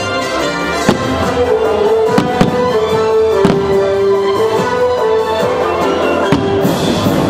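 Fireworks show soundtrack music playing steadily, with aerial firework shells bursting in several sharp bangs over it.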